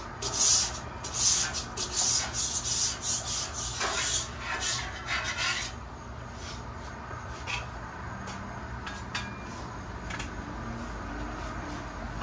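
A griddle scraper dragged in quick strokes across the steel cooking surface of a Blackstone flat-top griddle, clearing it after cooking. The scraping lasts about six seconds, then it goes quieter with only a few light clicks.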